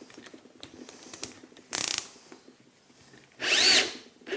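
Cordless drill run in two short bursts, spinning a threaded steel rod to run a nut down it. The second burst rises and then falls in pitch as the motor speeds up and slows. A few light metal clicks come before.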